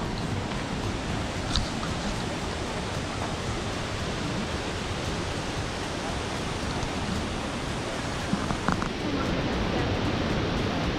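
Waterfall and river rushing steadily, an even noise with no change in level. A couple of brief knocks come about one and a half seconds in and again around eight and a half seconds.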